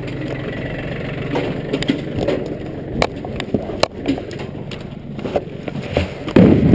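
Black plastic barrel being handled and heaved over the side of a wooden trailer: scraping and knocks against the plastic, with a heavier thump near the end as it goes in, over a steady engine idling.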